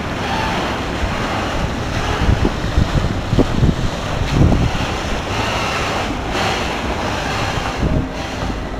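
Wind buffeting the microphone on a moving boat, over the steady wash of choppy water, with irregular low gusts.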